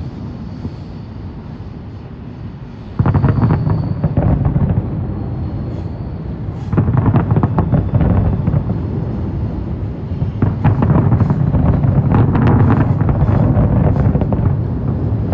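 A large fireworks display with shells bursting in rapid barrages of overlapping bangs and crackles. A sudden volley breaks out about three seconds in, and denser, sustained volleys follow from about seven seconds on.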